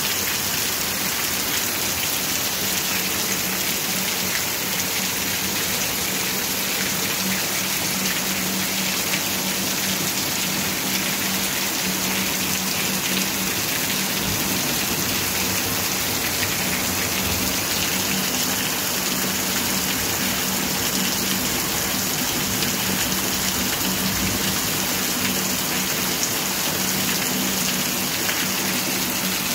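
Heavy rain pouring steadily onto concrete and splashing into puddles.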